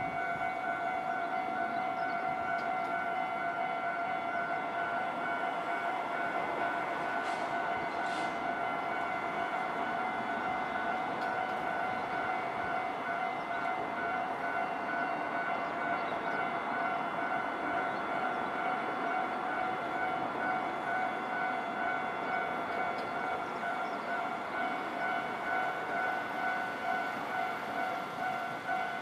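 Japanese railway level-crossing alarm ringing steadily, a repeating electronic bell tone, warning that a train is approaching.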